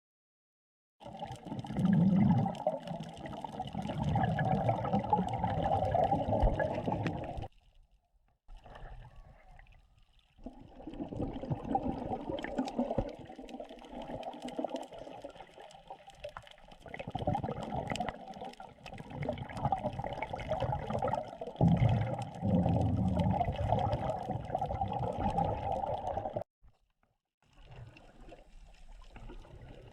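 Water sloshing and bubbling in long stretches, breaking off suddenly a few times.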